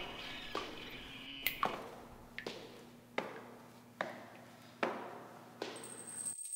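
Footsteps on a hard floor at a steady walking pace, each step sharp and echoing, over a low steady hum. A high thin tone comes in near the end.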